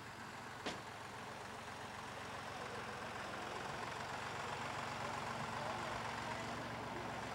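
Tractor engines running steadily, slowly getting louder, with a single sharp click under a second in.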